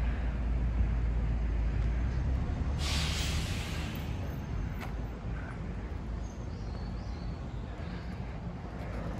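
Urban traffic with the low rumble of a heavy vehicle, easing after about two seconds, and a sharp hiss lasting about a second around three seconds in.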